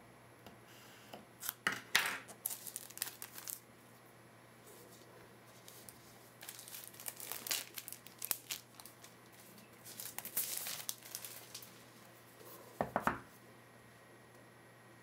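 Plastic shrink-wrap being torn off a sealed box and crinkled by hand, in bursts of crackling about two, seven and ten seconds in. A short, sharper rustle with a low thump comes near the end.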